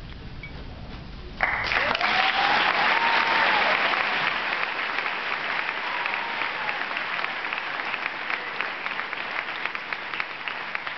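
Audience applauding, breaking out suddenly about a second and a half in, loud at first, then thinning out into scattered individual claps toward the end.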